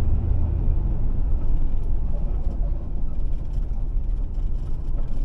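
A car on the move, heard from inside the cabin: a steady low rumble of engine and road noise.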